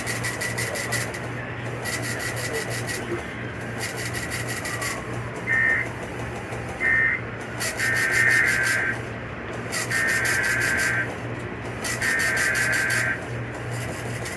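EAS SAME header: three harsh digital data bursts, each about a second long and a second apart, starting about eight seconds in, with two shorter bursts just before them. They are the coded start of an emergency alert. A steady low hum runs underneath.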